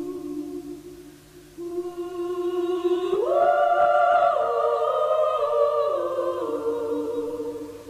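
Slow music of long held chords that fade about a second in, return, and swell louder around three seconds in, then step down through a few sustained changes.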